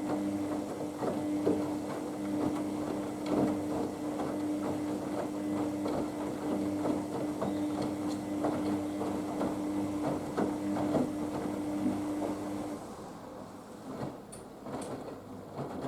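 Haier HWD 120 washing machine in the main wash of its Express 15-minute programme: the drum motor hums steadily while laundry and water slosh and knock in the turning drum. The motor hum cuts off about thirteen seconds in, leaving softer splashing of water and laundry.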